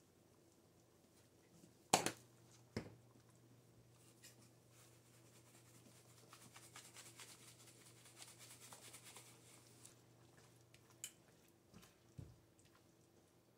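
Spice shakers of powdered seasoning being handled and shaken out: two sharp clicks about two seconds in, then a faint dry rattling hiss of powder shaken from a shaker for several seconds, and a soft knock near the end as a spatula goes into the pan.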